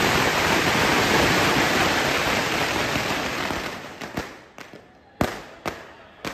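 Firecrackers going off in a rapid, continuous crackle that thins out about four seconds in to a handful of separate sharp bangs.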